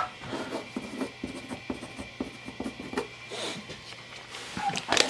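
Light rubbing and scraping with scattered small clicks and taps from tools and plywood being handled on a workbench.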